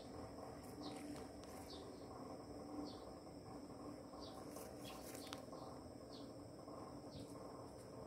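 Faint outdoor ambience: a bird repeating a short, falling high chirp about once a second, over a steady high-pitched insect drone.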